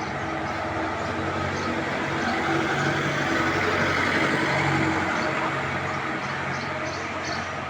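A steady engine-like hum under a broad rushing noise that swells a little midway through.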